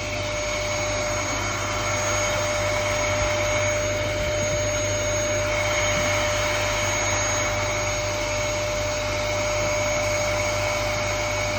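Vacuum cleaner running steadily: a constant rushing noise with a steady whine on top.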